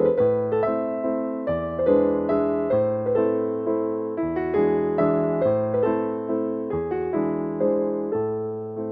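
Background music: soft chords of struck notes that ring and fade, a new chord about every one and a half seconds.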